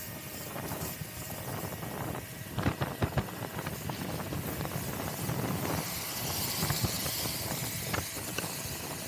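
Kaabo Wolf Warrior X GT electric scooter riding on a wet road: steady tyre and road hiss, with a few sharp knocks about two and a half to three seconds in.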